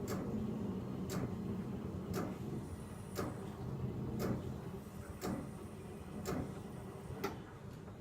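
Tchibo Cafissimo coffee machine's steam wand frothing milk: a steady rumbling hiss with a hum, cut by a sharp tick about once a second, easing off near the end as the frothing finishes.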